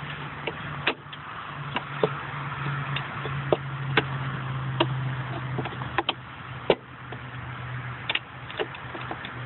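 Irregular sharp clicks and knocks of hands handling parts around a car battery, over a steady low hum and a hiss.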